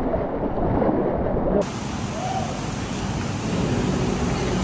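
Whitewater rushing with wind buffeting the microphone as a raft runs a high-water rapid. About a second and a half in it cuts to a steadier, even rushing noise.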